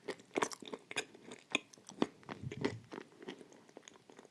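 Close-up chewing and crunching of clay pieces coated in white chalk paste: irregular sharp crunches, a few a second.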